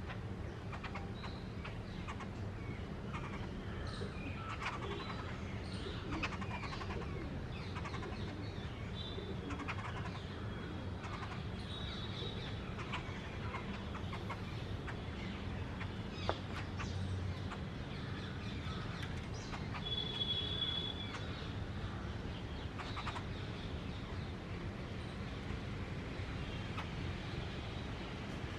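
A flock of babblers calling with many short, scattered notes while feeding, over a steady low hum. A single sharp tap partway through.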